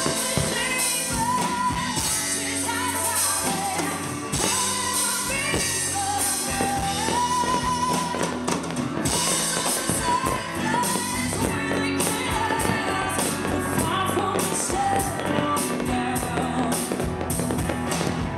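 A woman singing a high, wavering melody over a rock band with drums.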